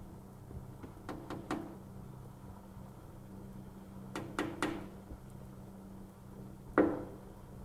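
Light knocks in quick groups of three, about a second in and again about four seconds in, then one louder knock near the end, over a steady low hum.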